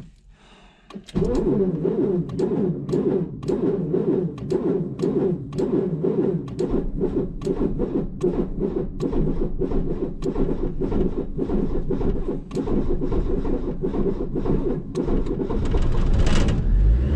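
A Renault 12 Toros's four-cylinder petrol engine cranked on the starter in a cold start: starting about a second in, a long, even churning at roughly three strokes a second for some thirteen seconds, until it catches and runs near the end.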